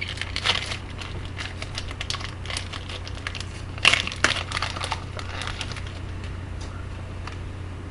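Trading card pack wrapper crinkling and tearing as it is opened, with the cards inside being handled, in irregular rustles, louder about four seconds in. A steady low hum runs underneath.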